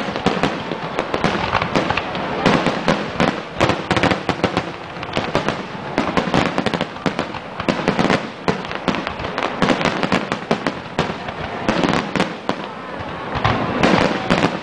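Fireworks display: aerial shells bursting one after another in a rapid, nearly continuous string of bangs.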